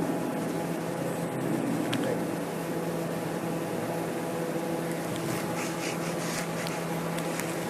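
Steady low hum of room background noise, with a faint click about two seconds in.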